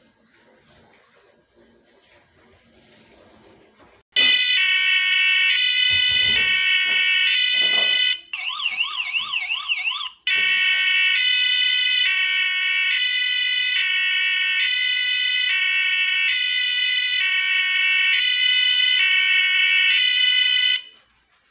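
Electronic police siren from a scale model police car's small sound unit, starting with a click about four seconds in. It alternates between a high and a low tone, switches for about two seconds to a fast rising-and-falling yelp, then goes back to the high-low tone until it cuts off shortly before the end. A few low knocks come early in the siren.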